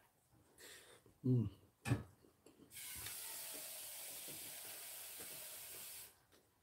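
A man eating gives a short hum and a mouth click. Then water runs in a steady stream for about three seconds, starting and stopping abruptly, as from a tap or a hot-water dispenser.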